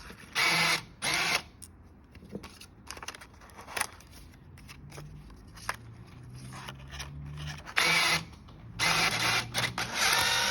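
Banknote acceptor's transport motor whirring in short bursts as it draws in and validates a one-yuan note, with the longest run near the end.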